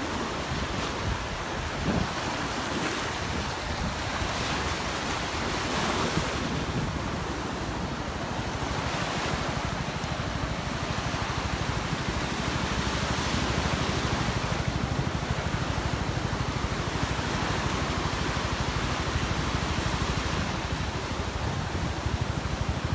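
Ocean surf washing onto the beach in slow, repeated swells, with wind rumbling on the microphone.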